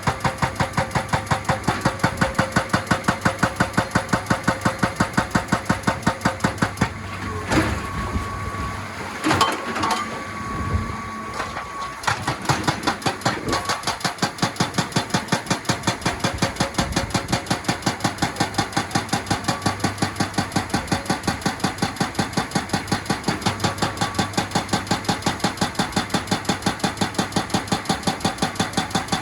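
Excavator-mounted hydraulic rock breaker hammering rock in rapid, evenly spaced blows. The blows stop for several seconds about a quarter of the way in, leaving a few loose knocks and the machine running, then start again.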